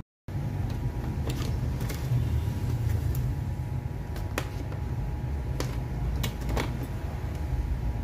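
A few small clicks and taps as alligator test clips are handled and clipped onto a hair dryer's plug prongs, over a steady low background rumble.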